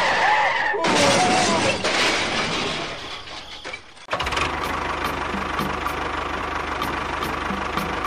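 A loud rushing burst of noise about a second in that fades away over the next few seconds. After a brief drop near four seconds, an engine starts a steady idle with a regular knocking chug.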